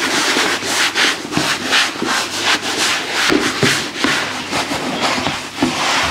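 A dishcloth rubbed back and forth in quick strokes over a molded bag shell, drying it after washing: rhythmic rubbing at about three strokes a second.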